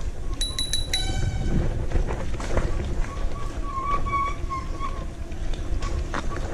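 Steady rumbling wind and ride noise on the microphone, with a quick run of sharp, high chirps about a second in.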